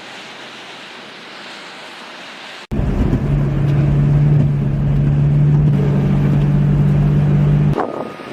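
A steady rushing noise like wind, then, after an abrupt cut about three seconds in, a loud engine running at a steady pitch with a low rumble for about five seconds, breaking into a few knocks near the end.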